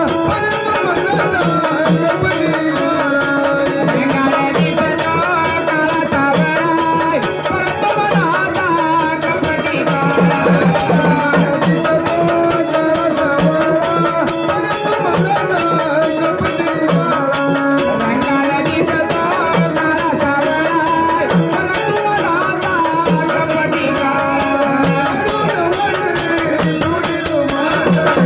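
Marathi gondhal folk music: fast, steady hand-drumming under a wavering melody line.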